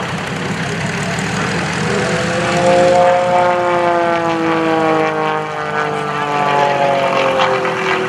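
Pitts S-1S aerobatic biplane's four-cylinder Lycoming engine and propeller droning in flight. The engine note rises slightly, then falls steadily over several seconds as the plane passes.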